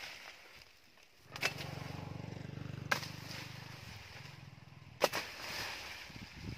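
A long curved blade on a wooden pole chopping into brush and branches: three sharp chops, about one and a half, three and five seconds in, each followed by leaves and twigs rustling. A low engine hum runs underneath from about a second in until past the middle.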